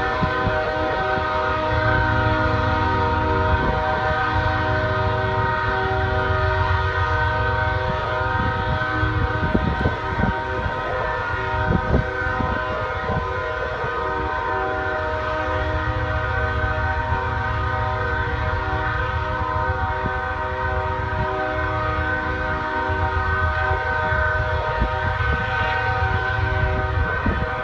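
Locomotive air horn blasting without a break, a chord of several steady tones held on and on. A low rumble runs underneath.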